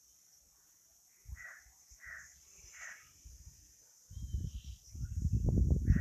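A crow cawing three times, short calls spaced under a second apart; from about four seconds in, a loud low rumbling noise takes over.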